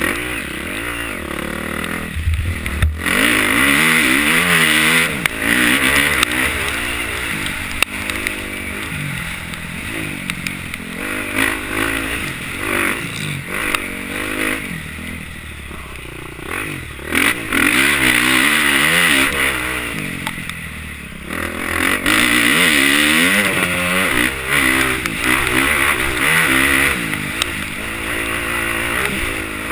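Motocross bike engine heard from the rider's helmet, revving hard and falling away again and again as the throttle is opened and closed through the gears, with brief throttle-off drops about three seconds in and again about two-thirds through.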